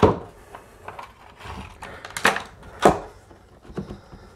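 Engineered hickory flooring board being set down and shifted into place on the wooden subfloor for a test fit: two sharp wooden knocks about half a second apart a little after two seconds in, a lighter knock near the end, and faint scuffing of the board between them.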